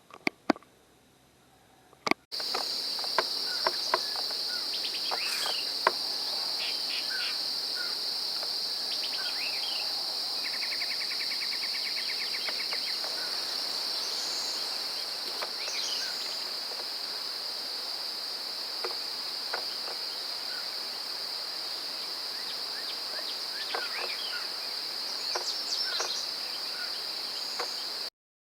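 Steady high-pitched insect chorus outdoors, with scattered short songbird chirps and a rapid trill about ten seconds in. A few sharp clicks come in the first six seconds.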